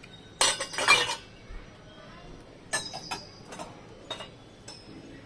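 Clean dishes and utensils clinking and clattering as they are handled, with a loud burst of clatter about half a second in, then a few separate single clinks.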